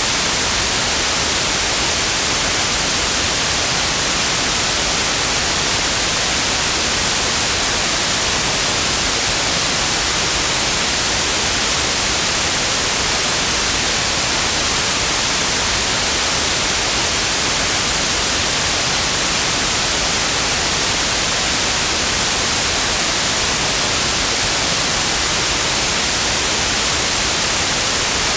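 Steady white noise: an even, unchanging hiss across the whole range, loud and constant.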